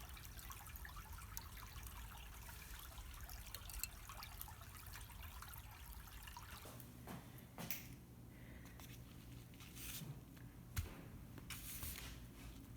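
Charcoal fire in a shichirin crackling and sizzling with a dense patter of fine pops, with a few louder brief rustling bursts in the second half.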